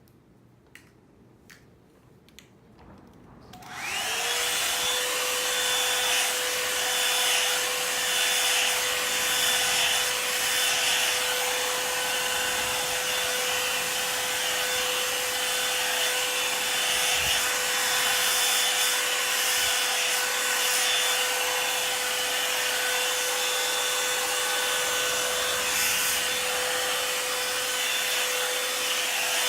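A few small clicks, then about four seconds in a Revlon One-Step hair dryer brush switches on: its motor whine rises quickly to a steady pitch over rushing air, and it runs steadily.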